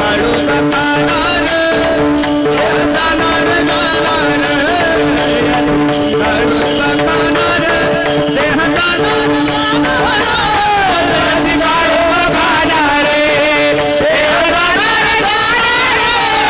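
A man singing a Marathi devotional kirtan verse into a microphone, with long ornamented notes, over held accompaniment notes and percussion strokes.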